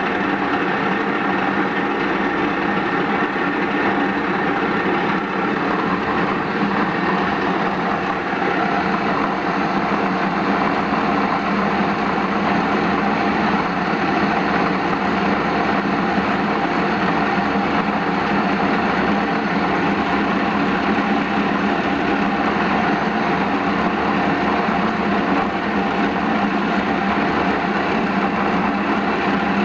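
Metal-turning lathe running steadily while turning a metal blank: a continuous, even machine hum with several steady tones.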